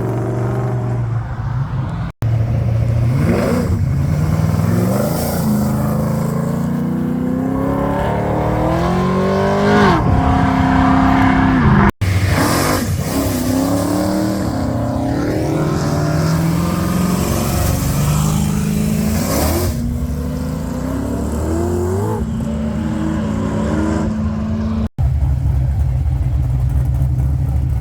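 Muscle car engines accelerating, several short takes joined by abrupt cuts: the engine note climbs in pitch and drops back again and again as the cars rev and pull away. After the last cut a steadier, lower engine note runs on.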